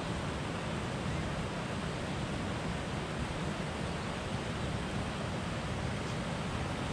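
Steady rushing noise of a flowing mountain river.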